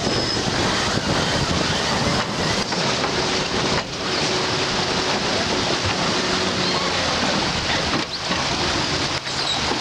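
Wind buffeting the microphone over the rush of water past a racing sailboat under way.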